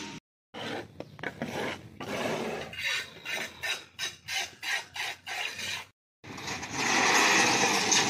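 Repeated rasping scrapes, about two a second, broken twice by brief total silences. Near the end comes a steady noise.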